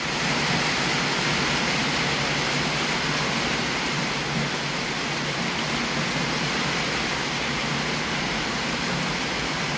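Heavy thunderstorm rain pouring down as a steady, even hiss, swelling up within the first half second and then holding level.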